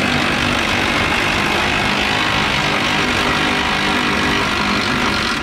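Cordless impact wrench hammering steadily without a break, spinning a nut off a crossmember bolt under the truck.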